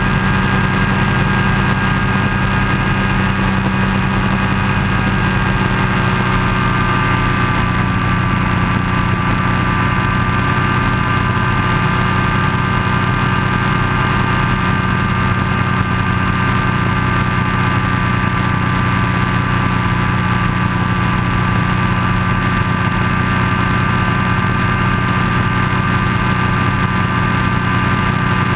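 Ultralight floatplane's pusher engine and propeller running steadily in level cruise flight.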